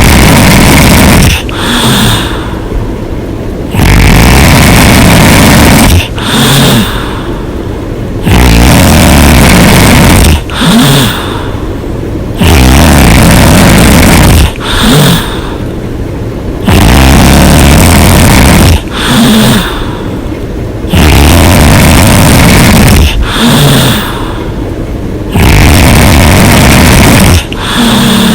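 A woman snoring loudly and hard with her mouth open: a long, loud snore of about two seconds, then a short, softer one, repeating evenly about every four seconds.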